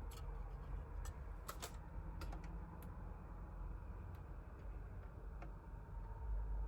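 Scattered small clicks and taps of hard plastic model-kit parts being handled, over a low steady background hum.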